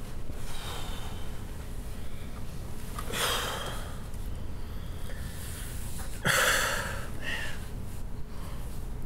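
A man breathing out heavily twice, like sighs, about three seconds in and again about six seconds in, the second louder, over a steady low room hum.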